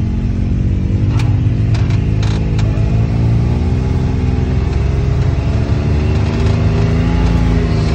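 Side-by-side UTV engine running steadily at low trail speed, heard from inside the cab, its pitch rising and falling a little, with a few brief knocks in the first few seconds as it rolls over the trail.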